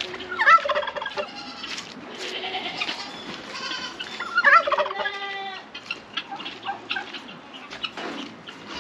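Domestic turkey gobbling repeatedly, a quick rattling call, loudest about half a second in and again about four and a half seconds in.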